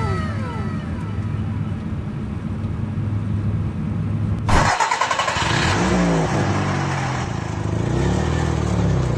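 Vehicle engine sound: a steady low engine running, then a sudden switch about four and a half seconds in to a louder engine revving, its pitch falling.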